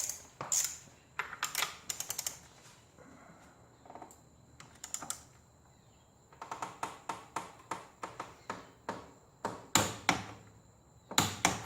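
Torque wrench ratcheting in short runs of sharp clicks as it tightens the scooter's clutch nut to 43 foot-pounds.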